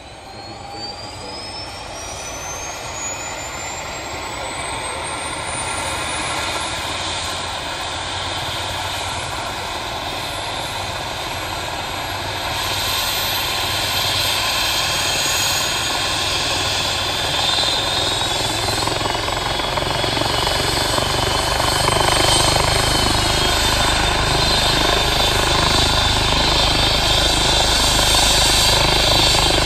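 Eurocopter EC135 air ambulance helicopter starting up: a turbine whine rises steeply in pitch over the first several seconds, then the engines and spinning-up rotor grow steadily louder.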